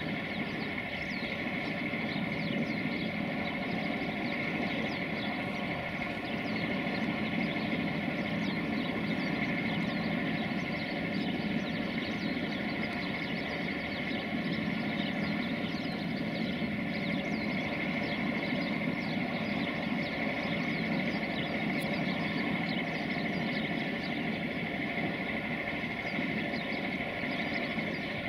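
Bombardier Traxx electric locomotive running slowly while shunting, its cooling blowers and traction equipment making a steady hum with a constant high whine.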